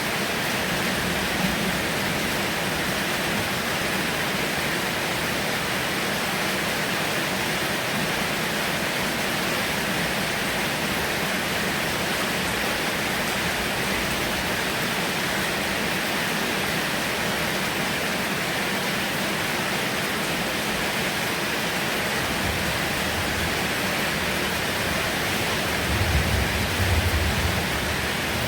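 Heavy rain falling as a steady, even hiss. Low rumbles swell up near the end.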